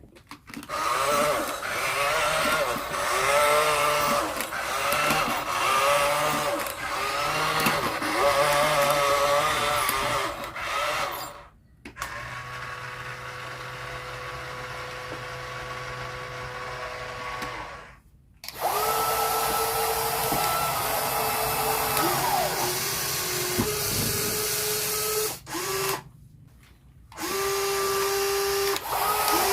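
Small electric motors of remote-control toy construction vehicles whining under power, in three stretches with short stops between them. The pitch wavers in the first stretch, as the motors speed up and slow down, then holds steady.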